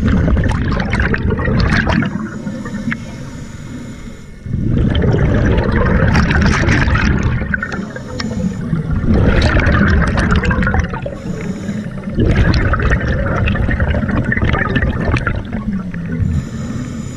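Scuba regulator exhaust bubbling underwater as the diver breathes out: four loud bubbling bursts, each two to three seconds long, with quieter gaps between them.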